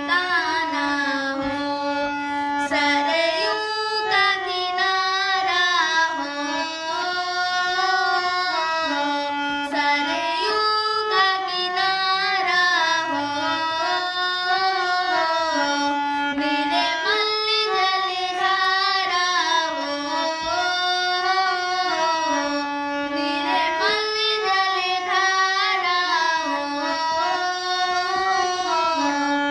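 A single high voice singing a Hindi devotional bhajan to Shri Ram, in long held notes that glide up and down.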